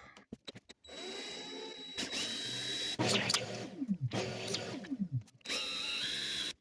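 Electric drill boring holes in a wooden board for rare earth magnets, in several short runs. Twice the motor's pitch falls as it winds down.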